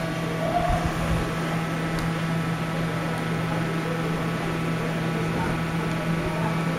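A steady mechanical hum at an even level, with a strong low drone and several fainter steady tones above it.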